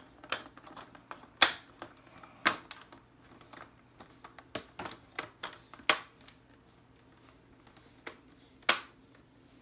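Plastic laptop screen bezel being pressed back onto the display lid, its clips snapping into place: a scattered series of sharp plastic clicks, about nine, unevenly spaced.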